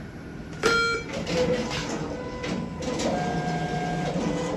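ATM beeps once, then its cash dispenser mechanism whirs steadily as it counts and feeds out banknotes.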